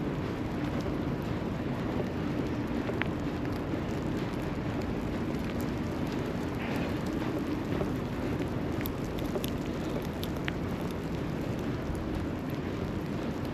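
Steady city street noise in a snowstorm: a constant low hum of traffic under an even hiss, with a few faint ticks now and then.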